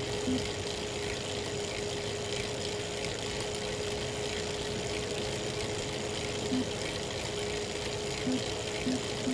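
Elite Real Turbo Muin B+ fluid trainer running under a pedalling rider, with a steady whine. Short cracks come twice near the start and several times in the last few seconds: the cracking noise this trainer makes at any cadence once power goes over 200 watts.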